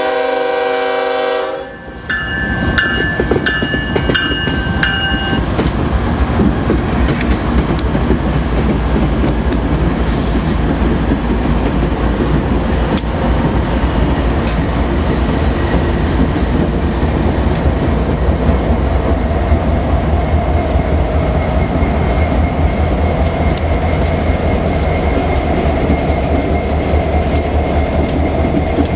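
The lead Union Pacific ES44AC locomotive's horn chord cuts off about two seconds in. Then a consist of five Union Pacific diesel locomotives passes close by: heavy engine rumble with the wheels clattering rhythmically over the rails and the crossing.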